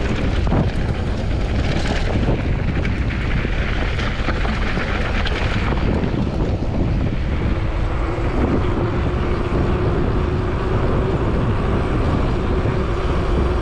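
Wind buffeting and road rumble on an action camera's microphone during a mountain-bike ride: a steady rushing noise, with a steady low hum joining about seven seconds in.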